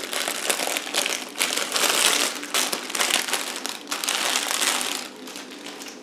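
Clear plastic bag crinkling as it is handled and opened, dense and crackly for about five seconds, then dying down.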